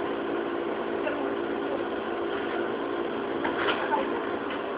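JR 205-series electric train standing at a station, with a steady hum of several constant tones from its on-board equipment. A short knock comes about three and a half seconds in.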